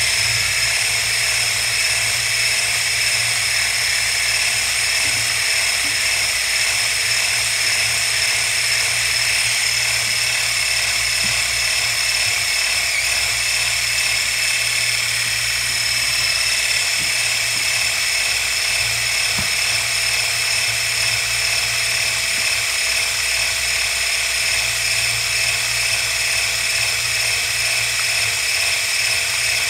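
Electric hand blender with a whisk attachment running steadily, its motor giving a constant high whine as it beats pancake batter in a glass bowl.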